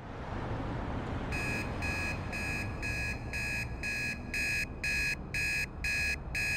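Digital alarm clock beeping: short high beeps about twice a second, starting about a second in and growing a little louder, over a faint low rumble.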